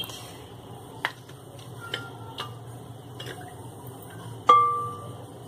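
Kitchenware being handled: a few light clicks and taps, then one louder clink near the end that rings briefly.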